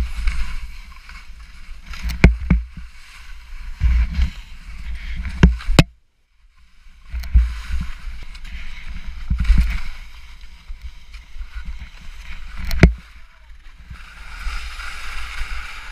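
Skis scraping and sliding on snow in irregular surges as the skier turns down a steep couloir, with wind rumbling on the helmet camera's microphone. A few sharp clacks of skis or poles, and a brief dropout about six seconds in.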